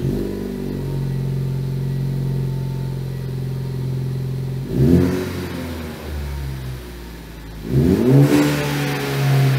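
Ford Focus ST's turbocharged 2.0-litre four-cylinder heard through a new ACCELATEC Sport stainless steel cat-back exhaust: it starts and settles into a steady idle, then is revved twice, about five and eight seconds in, each rev falling back to idle.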